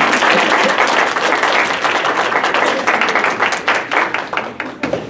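Audience applauding: many people clapping at once, dying away near the end.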